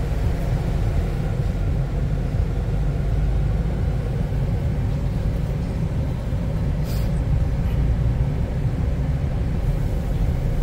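Road and engine noise inside a pickup truck's cabin as it drives slowly on a wet road: a steady low rumble, with a short click about seven seconds in.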